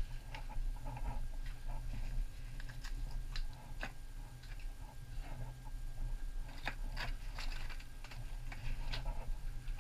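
Irregular crunching and scraping of footsteps on loose rock in a lava tube, with a few sharper clicks, over a steady low rumble.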